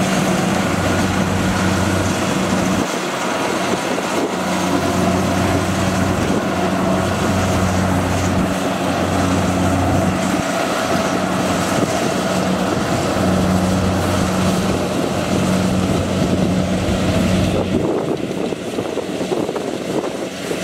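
Kubota DC-70 rice combine harvester running steadily as it cuts and threshes ripe rice: an even engine hum under a continuous mechanical rushing noise, thinning and dropping slightly near the end.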